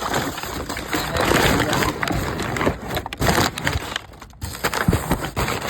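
Rustling of packaging with scattered knocks and clicks as boxed parts are handled.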